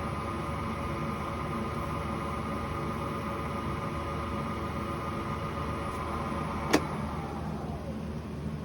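Lathe running steadily while a bicycle hub bearing cone is polished with paper towel and green polishing compound, with a steady motor hum. A single sharp click about seven seconds in, followed by a faint falling tone.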